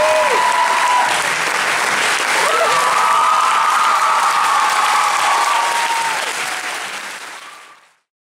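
Audience and performers applauding, with a few long cheering calls over the clapping. The applause fades out over the last second and a half.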